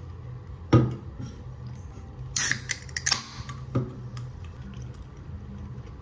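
Food and a drink can being handled on a wooden table: a sharp knock about a second in, a short hiss around the middle, and a lighter click near four seconds as a Coca-Cola can is set down, over a steady low hum.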